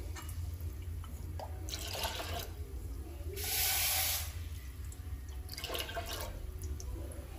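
Water poured from a small vessel into an aluminium pot of soaked split moong dal, splashing in three separate pours, the loudest about halfway through.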